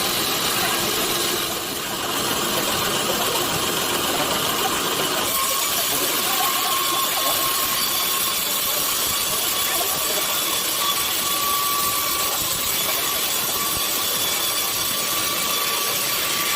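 Sawmill machinery running steadily: a loud, even hissing noise, with a faint steady whine joining about five seconds in.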